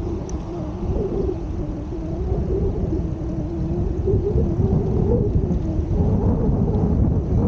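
Steady low rumble of a moving vehicle, with a hum that wavers slightly in pitch over the road noise.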